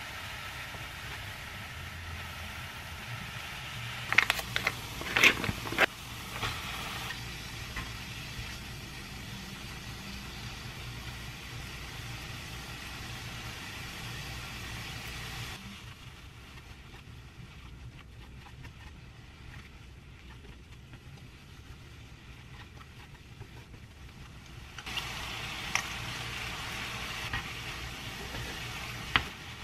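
Onion and mushroom slices sizzling in oil in a nonstick frying pan, a steady hiss. A cluster of sharp clicks and knocks comes about four to six seconds in. The sizzle drops quieter past the middle and comes back near the end, with a few clicks of chopsticks against the pan.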